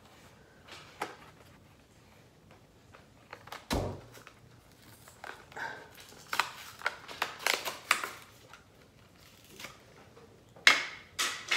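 Hot Wheels blister-card packaging being handled and opened: scattered plastic clicks and crackles, with a dull thump about four seconds in and a quick run of sharper clicks near the end.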